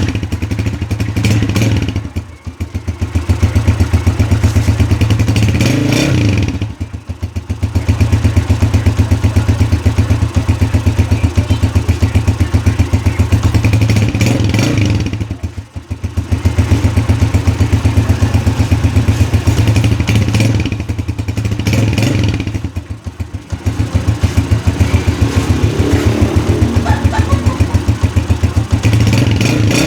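A TMX motorcycle engine breathing through a stock Platino exhaust pipe, run up on the throttle in several long pulls. Each pull drops back to idle before the next, about four times.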